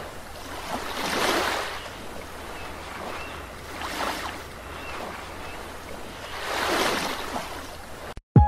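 Ocean surf: waves washing in with a rushing hiss that swells three times, about every three seconds, then cuts off abruptly near the end.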